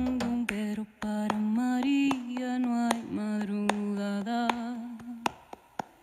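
A woman's voice singing a slow, wordless melody in long held notes with no drum under it. It fades out about five seconds in.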